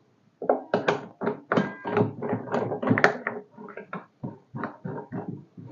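Irregular knocks and clicks of a tilting wet grinder's drum and fittings being handled: parts set in place and locked, with no motor running.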